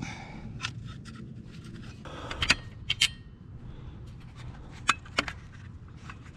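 Light metal clicks and a brief scrape of small bolts and hardware being handled while the bash plate comes off the bike's frame, a handful of separate ticks with two close pairs.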